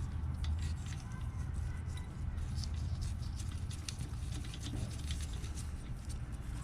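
Scattered, irregular small metallic clicks and taps of a spark plug and socket being fitted and threaded into the cylinder head of a CT70-clone pit bike engine, over a steady low hum.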